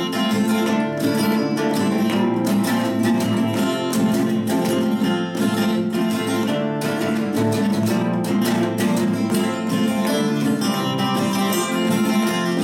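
Instrumental duet of two acoustic guitars, a nylon-string classical guitar and a steel-string guitar, playing dense, flowing runs of plucked notes together.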